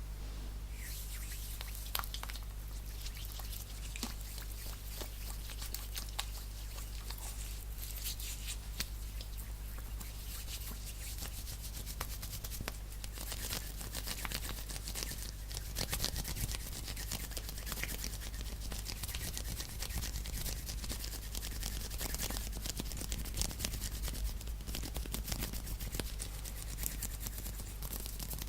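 Fast hand sounds close to the microphone: dry palms and fingers rubbing and fluttering quickly, with many small sharp taps and clicks mixed in, over a steady low hum.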